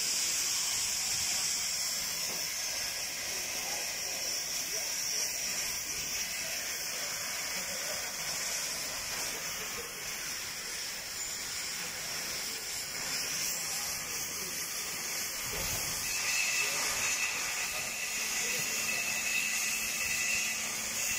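Oxy-acetylene cutting torch hissing steadily as its flame cuts through a steel pipe.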